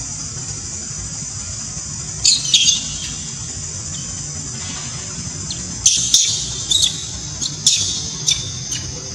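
Young long-tailed macaque screaming in short, shrill squeals, a pair around two seconds in and a quick series from about six to nine seconds, a distress call. Beneath it a steady high-pitched hum of cicadas or other insects.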